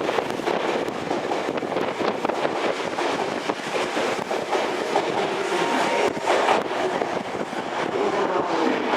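Meitetsu electric train running through the station, its wheels clattering over the rail joints in a steady, loud rumble, with a faint motor whine.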